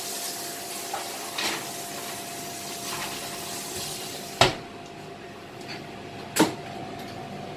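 An oven door is shut with a sharp bang about four and a half seconds in, followed by a second sharp knock about two seconds later. Before the door shuts there is a faint steady hiss with a thin hum under it.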